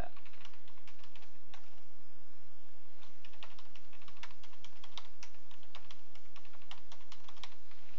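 Typing on a computer keyboard: a few scattered keystrokes, then a fast run of keystrokes from about three seconds in, over a steady low hum.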